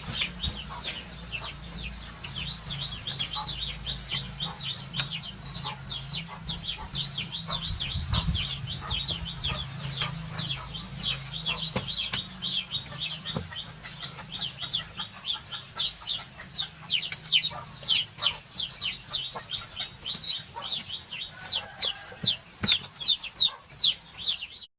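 Rapid high-pitched chirping calls, several a second without pause, growing louder over the last few seconds, over a steady low hum.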